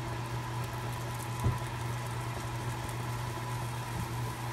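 Steady low electrical hum with a single light click about a second and a half in.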